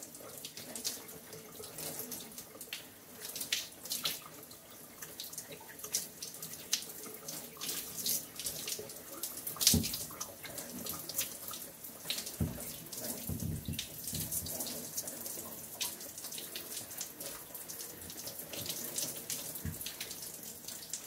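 Shower water running and splattering onto wet hair, skin and the tiled stall during a hair wash, with irregular spatters throughout and one louder splash about ten seconds in.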